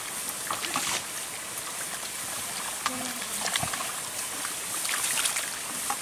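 Rice seedlings being pulled by hand from a flooded, muddy nursery bed and their roots swished in the water: small scattered splashes and squelches of mud and water over a steady high hiss.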